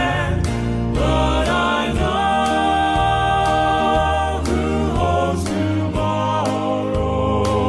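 Southern gospel male vocal quartet singing a slow song in close harmony, with sustained chords and a moving bass line over a steady light percussion beat.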